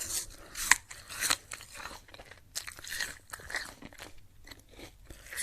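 Eating a crisp, crunchy apple: irregular wet crunches of chewing, with two sharp, louder crunches in the first second and a half.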